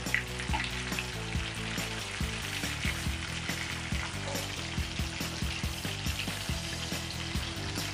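Cheese balls deep-frying in hot oil, the oil sizzling and crackling steadily. The cook takes this crackle as the sign that the golden-brown balls are ready to burst and must come out.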